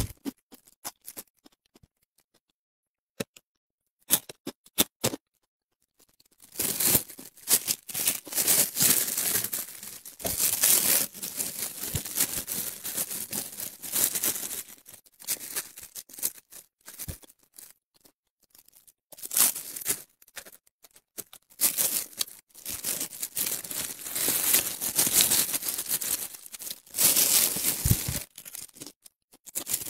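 Crisp, spice-crusted grilled fish being torn apart by hand in plastic gloves: crackling crust and tearing flesh in long stretches, starting about six seconds in after a few scattered clicks.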